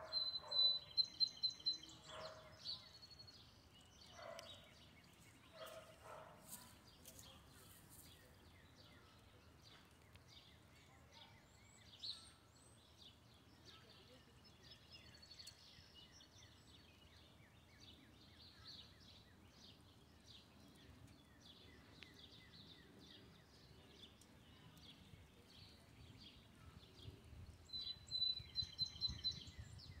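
Faint outdoor ambience of wild birds chirping and singing, over a low background rumble. A rapid trill of repeated high notes comes at the start and again near the end.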